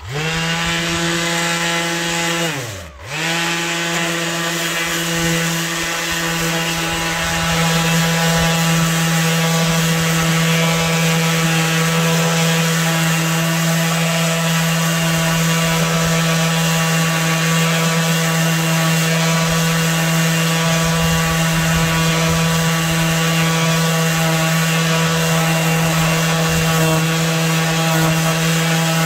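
Craftsman 20V cordless random orbital palm sander starting up, winding down and spinning back up once about three seconds in, then running steadily with the sanding pad rubbing against a wooden cutting board.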